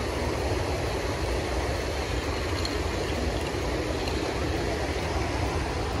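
Steady rush of water from a rocky forest stream, with a strong low rumble underneath.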